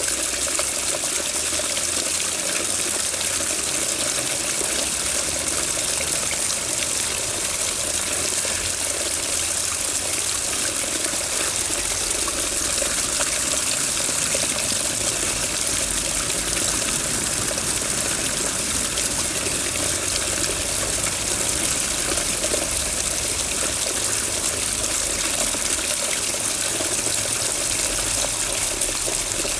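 Water running steadily, an even rushing with no breaks or changes.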